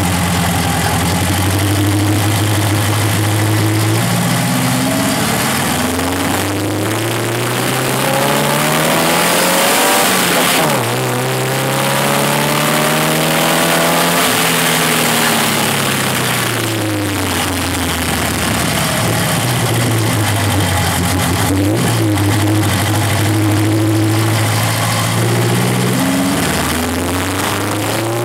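Chevrolet Chevette OHC four-cylinder engine and exhaust under way. It runs steady at first, climbs in revs for about six seconds, then eases off and slows. After a steady stretch it climbs again near the end.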